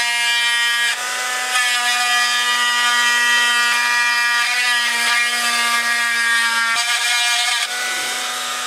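Handheld rotary tool with a small grinding bit cutting a slot into a resin fishing lure body: a steady whine whose pitch and level shift slightly a few times as the bit works into the resin.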